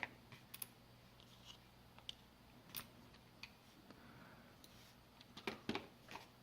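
Faint, scattered small clicks and taps of a smartphone's small plastic and metal parts being handled, with a few sharper clicks near the end.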